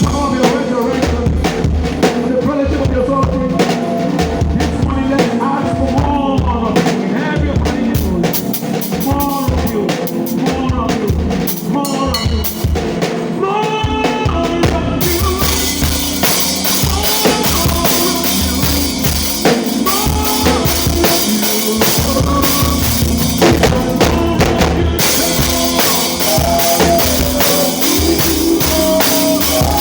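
Live church band playing an instrumental groove: a drum kit with steady bass drum and snare and rimshot hits under melodic lines, in a rough-sounding live recording. A bright wash of cymbals comes in about halfway through and drops out near the end.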